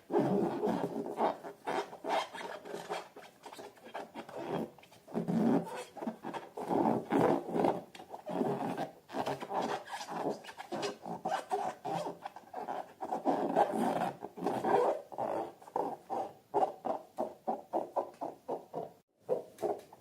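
Hands rubbing and squeezing rubber balloons filled with slime, in many quick, irregular strokes, with a short pause near the end.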